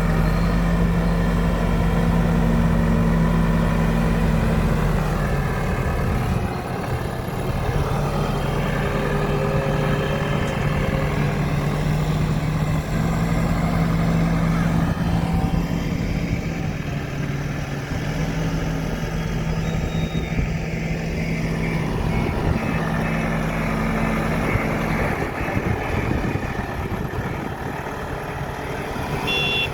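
JCB 3DX backhoe loader's diesel engine running steadily under work. Its note shifts a few times as the load changes.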